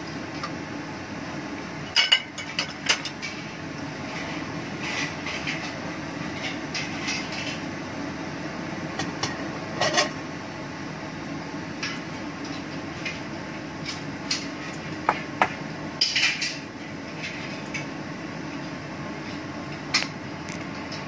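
Kitchen clatter: dishes, pots and utensils clinking and knocking at irregular moments, sharpest about two seconds in and around the sixteen-second mark, over a steady fan hum.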